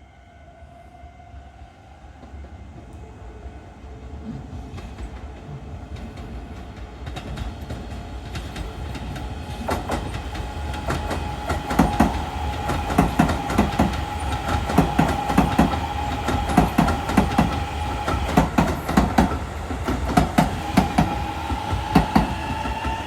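Electric train approaching and running past, growing steadily louder, its wheels clacking over the rail joints in irregular clusters from about halfway through. A steady high whine runs throughout and rises slightly in pitch near the end.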